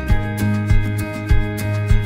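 Background music with a steady beat, a hit about every 0.6 seconds under sustained tones.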